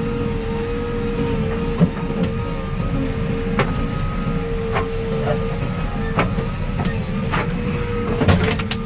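Diesel engine of a JCB 3DX backhoe loader running steadily with a constant whine, and short sharp knocks every second or so.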